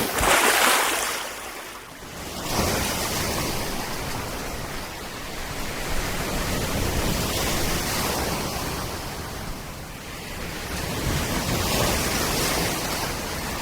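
Rushing noise of wind and sea water, swelling and easing every few seconds.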